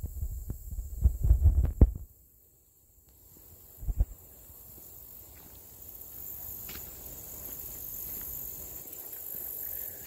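Low thumps and rumble from walking with a handheld phone for the first two seconds, then a short drop to near silence and one more thump about four seconds in. A steady high-pitched insect chorus carries on underneath and grows louder in the second half.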